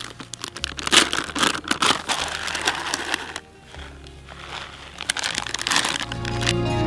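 Plastic snack pouch crinkling and rustling as it is handled, with a quieter stretch in the middle. Soft guitar music fades in near the end.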